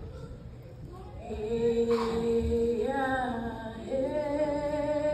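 Haida dance group singing in unison in long held notes. The voices come in about a second in and step up to a new pitch twice.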